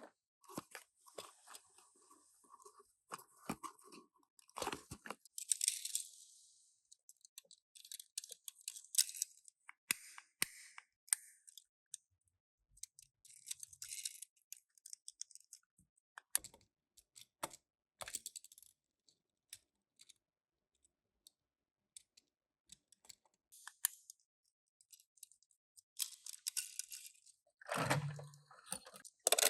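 Intermittent crinkling and rustling of toy packaging, with small sharp clicks and taps as the toy cars are unboxed and handled. A quiet stretch falls in the middle, and the loudest handling comes near the end.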